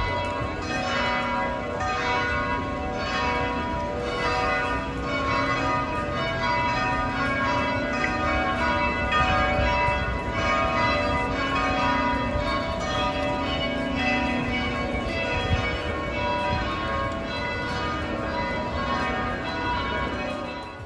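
Church bells ringing, many bells struck in quick, overlapping succession.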